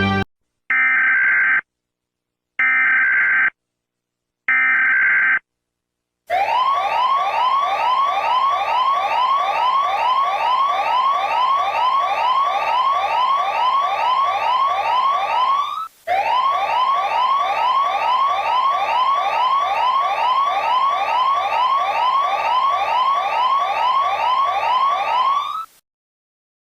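Electronic emergency alert tone: three long, steady beeps, then a fast run of short rising sweeps that repeat over and over. The sweeps break off once for a moment midway and stop shortly before the end.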